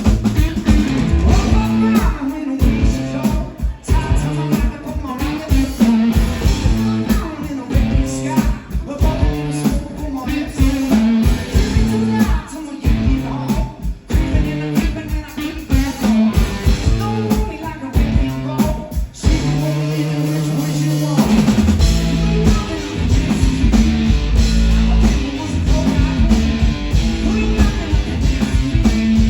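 Live rock music from a guitar-and-drums duo: distorted electric guitar, a drum kit and singing. About two-thirds of the way through, the drums stop for a couple of seconds under a held chord, then the band comes back in heavier.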